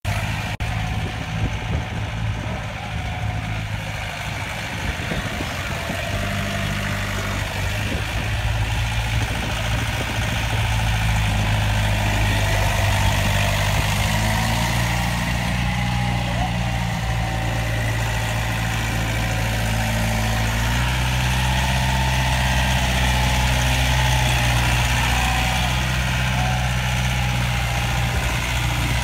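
Yanmar compact tractor's diesel engine running at low speed as the tractor creeps through a course, its pitch shifting a couple of times with throttle changes and growing louder as it comes closer.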